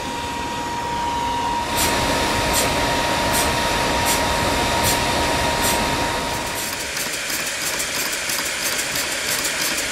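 Homemade coal-fired steam engine starting to run over a steady hiss of steam, the hiss likely from leaks in its holed boiler. Its exhaust beats come about once every 0.8 seconds at first, then quicken to about four a second from around six and a half seconds in. A thin steady tone sounds with the hiss and stops at about the same point.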